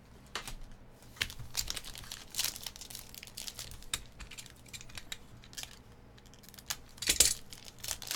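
Foil wrapper of a trading card pack crinkling and tearing as it is pulled open by hand: irregular bunches of sharp crackles, loudest about seven seconds in.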